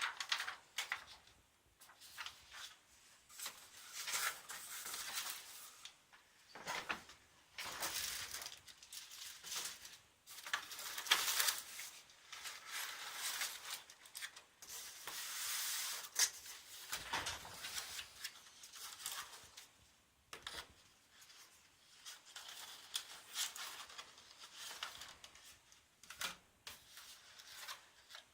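Product packaging being unwrapped and handled: irregular rustling, tearing and rubbing, with scattered sharp clicks and knocks.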